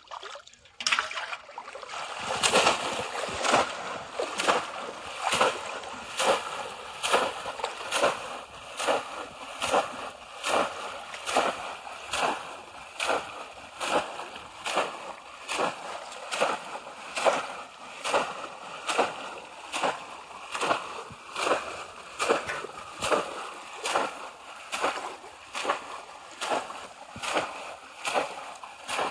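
Two bamboo polo fish traps being plunged over and over into shallow pond water, making a steady rhythm of sharp splashes, a little more than one a second.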